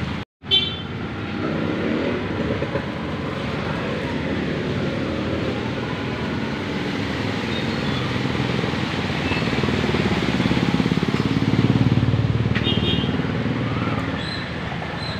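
A motor vehicle's engine running steadily, louder about ten to twelve seconds in. The sound cuts out for a moment near the start and returns with a click.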